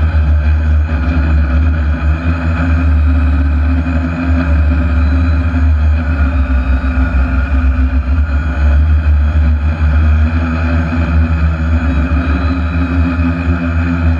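Hexacopter's electric motors and propellers running steadily in flight, picked up by a camera on the craft's own frame: a steady drone of several level tones over a heavy low rumble.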